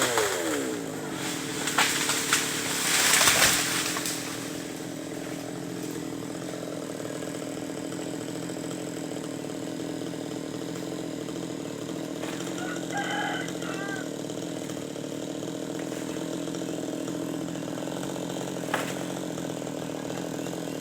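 Chainsaw engine dropping from cutting speed to idle, then idling steadily, with a few short noisy bursts in the first few seconds. A chicken calls briefly about thirteen seconds in.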